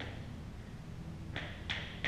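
Escrima sticks clacking together as abanico strikes hit the partner's held stick: one sharp clack at the start, then two more about a third of a second apart near the end. A steady low hum sits underneath.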